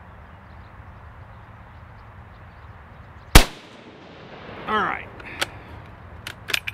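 A single shot from a Type 99 Arisaka bolt-action sniper rifle chambered in 7.7x58mm Japanese: one sharp crack about halfway through that dies away quickly. A few light clicks follow near the end.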